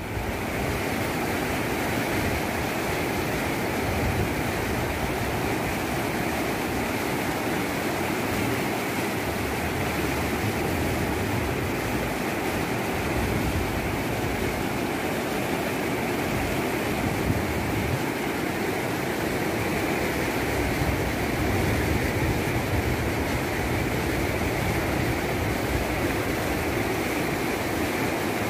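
Muddy floodwater rushing in a steady, unbroken roar of noise.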